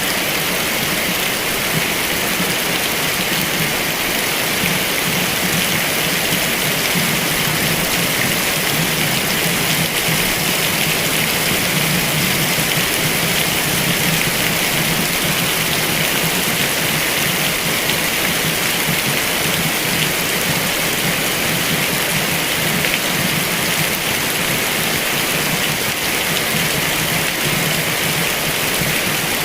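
Heavy rain falling, a steady, even hiss that does not let up or change.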